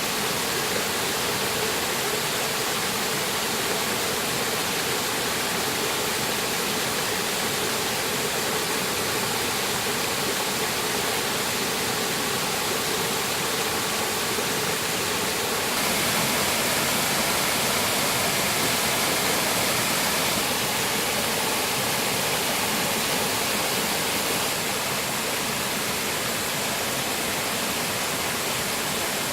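Clear mountain-valley stream flowing: a steady rushing of water, a little louder and brighter for a few seconds past the middle.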